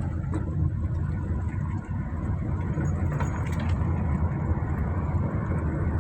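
Car driving along: a steady low rumble of engine and tyres on the road.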